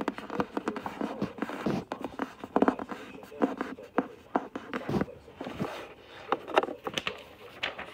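Paper being handled by hand: irregular scraping, crinkling and sharp clicks.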